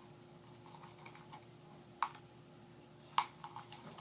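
Scattered light clicks and taps from stirring glue and laundry detergent together into slime, with a sharp tap about two seconds in and a quick run of taps near three seconds, over a faint steady hum.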